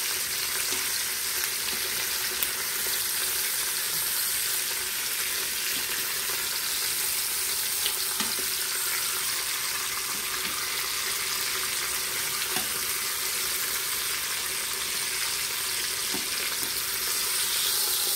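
Chicken thighs sizzling steadily in hot oil in the stainless inner pot of an Instant Pot, searing skin-side down to crisp the skin. Now and then a light click of metal tongs against the pot.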